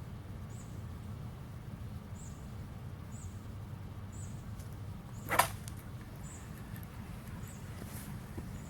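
Faint, high, short chirps repeating about once a second, typical of a chirping insect such as a bush cricket, over a steady low rumble. A single sharp, short noise about five seconds in is the loudest sound.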